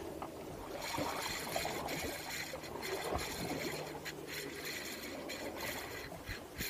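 Water sloshing and lapping against the hull of a small boat drifting on an ocean swell, an uneven splashy wash with many small slaps.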